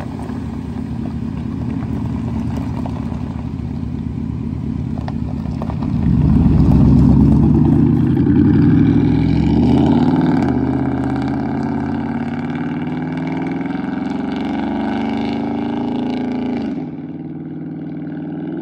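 Chevrolet Tahoe V8 through a loud true dual cat-back exhaust, running steadily at first, then at about six seconds accelerating hard with the engine note climbing in steps through the gear changes before easing off as the truck pulls away.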